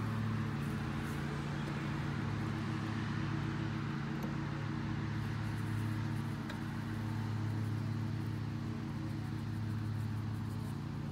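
A steady low mechanical hum with a fainter even hiss above it, unchanging throughout.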